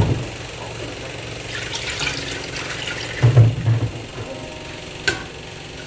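Coconut milk being poured from one pot into an aluminium pot, a steady splashing pour, with a single sharp knock about five seconds in.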